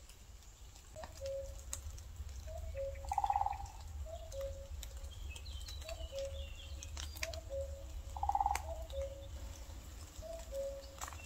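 Woodland birds calling. A low two-note call, a higher note then a lower one, repeats about once a second. Two louder short calls come about three and eight seconds in, and faint higher chirps sound behind.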